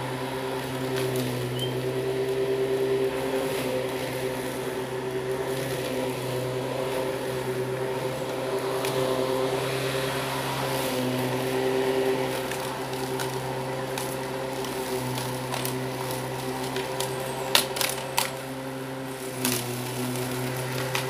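Electric rotary lawn mower running steadily, its motor hum dipping in pitch now and then as it takes load in the grass. A quick cluster of sharp clicks comes late on.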